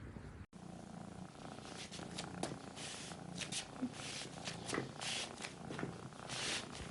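Domestic cat purring, a low rhythmic buzz, with soft rustles and clicks over it.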